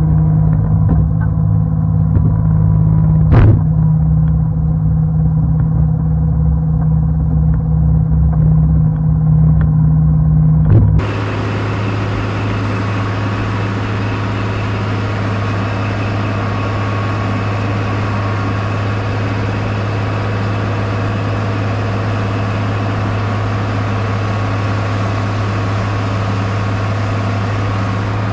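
Bombardier BR-160 snowcat engine running steadily under load as the blade pushes snow, with a single sharp knock about three seconds in. About eleven seconds in the sound changes abruptly to a steadier, thinner engine hum with more hiss.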